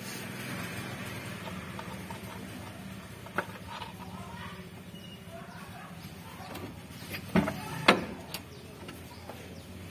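Hand work on a diesel engine's timing belt cover: a few sharp metallic clicks and knocks, most of them close together near the end, over a low steady hum.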